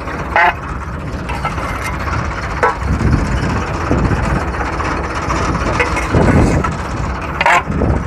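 Diesel engine of a Case 580 Super L backhoe running at idle, a steady low rumble that swells briefly a few times.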